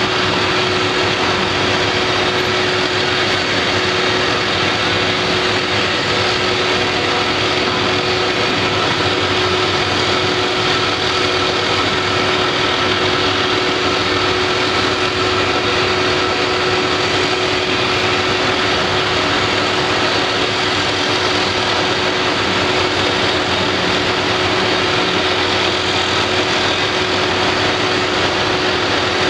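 Steady construction-site machinery noise: an engine running at a constant pace under a broad, even rumble and hiss, with a constant hum through it and no knocks or changes.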